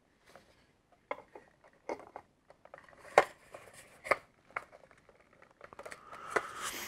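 Hard plastic toy parts of a Hasbro AT-ST figure clicking and knocking against each other as the walker's head is fitted into its body plate, about half a dozen sharp clicks, then a longer rubbing of plastic on plastic near the end.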